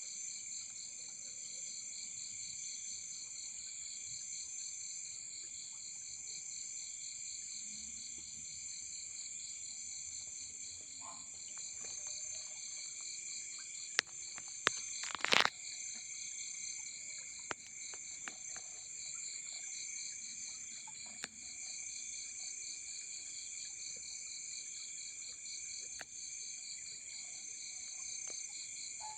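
A steady chorus of forest insects: several high continuous trills layered together, one of them pulsing rapidly. About halfway through, a few sharp clicks and one louder knock cut across it.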